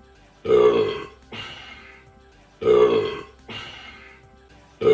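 A man burping loudly. Three times, about two seconds apart, a long burp is followed by a shorter, softer one. The identical repeats sound like the same burp looped.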